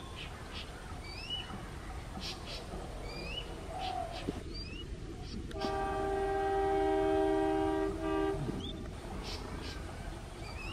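Horn of an approaching diesel locomotive, one long steady blast of about three seconds a little past halfway. Birds chirp now and then over a low background rumble.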